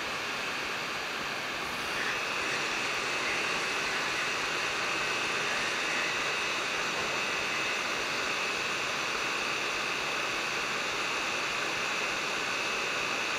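Hot air rework station blowing a steady hiss of air with a thin high whine, a little louder from about two seconds in, reflowing the solder under a replacement M92T36 charge-controller chip.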